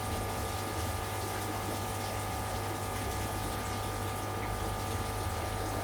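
Aquarium pump running steadily: a low hum with a steady wash of moving water.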